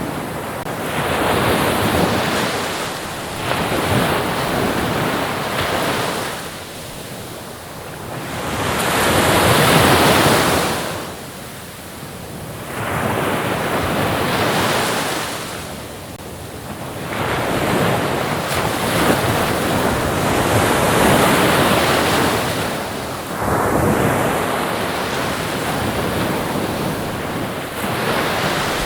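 Ocean waves breaking and washing on the shore in slow swells, rising and falling about every four to six seconds, with wind noise mixed in.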